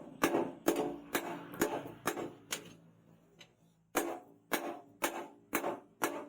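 Hammer blows on steel, about two a second, each ringing briefly. This is typical of hand-forging leaf-spring steel into a knife blade. The blows pause for about a second and a half midway, then pick up again at the same pace.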